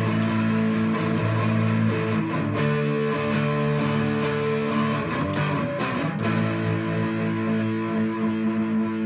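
Solid-body 12-string electric guitar played through a Stone Deaf Fig Fumb fuzz pedal into a Boss Katana amp: big fuzzed chords strummed repeatedly, changing a few times. Near the end one chord is left ringing.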